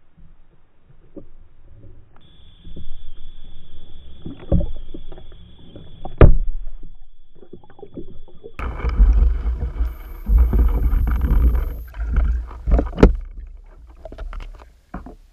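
Underwater sound heard through a submerged camera: sharp knocks and a heavy low rumble of moving water, louder from about halfway through. A steady high whine runs for several seconds near the start.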